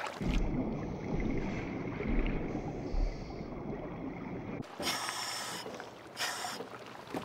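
Muffled underwater water sound: a low rumble with a few dull thumps. About four and a half seconds in it switches to open air, with wind and water splashing against an inflatable boat and two short rushes of splashing.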